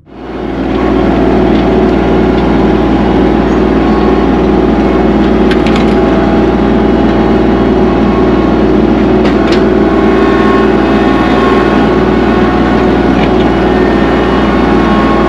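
Kubota tractor's diesel engine running steadily under load, with a few brief sharp cracks partway through.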